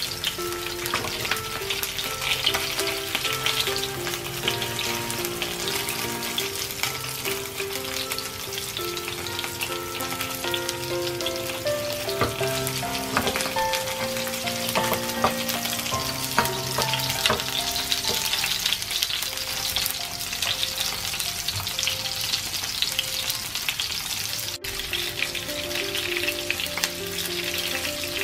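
Panko-breaded white fish fillets pan-frying in shallow oil, a steady dense sizzle and crackle. Soft background music plays underneath.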